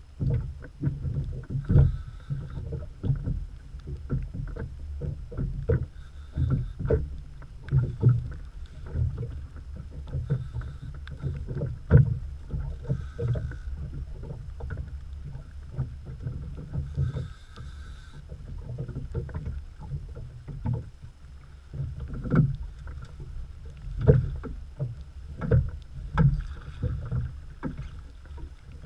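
Choppy lake water slapping against the hull of a small open boat: irregular knocks and splashes of varying strength over a steady low rumble.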